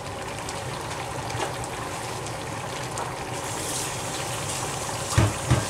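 Crab curry in coconut milk simmering in an open pan, a steady bubbling hiss with faint pops. Two soft low thumps near the end.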